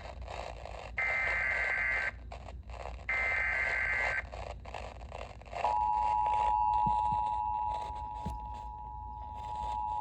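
Emergency Alert System SAME header: two harsh, screeching data bursts, each about a second long and a second apart. About six seconds in, the EAS two-tone attention signal starts, a steady dual tone that holds to the end, marking the start of a new alert activation, here a severe thunderstorm warning.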